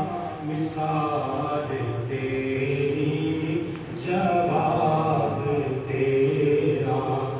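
A man reciting a naat, an Islamic devotional poem sung without instruments, in long, drawn-out notes that bend and glide in pitch.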